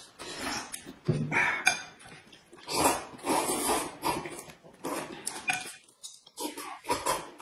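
Noodles being slurped and chewed at the table by two people, in a run of short, wet sucking bursts, with now and then a clink of chopsticks on a bowl.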